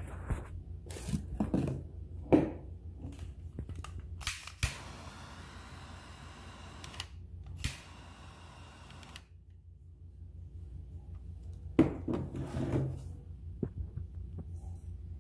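Butane jet torch lighter clicked on, its flame hissing for about two seconds, then clicked on again and hissing for about a second and a half as it lights an incense cone. Scattered clicks and knocks of handling come before and after.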